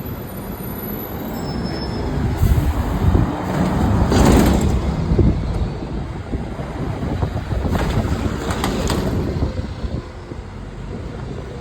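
A bus passing close by on the road: low engine rumble with tyre and air noise that swells about four seconds in and again about eight seconds in.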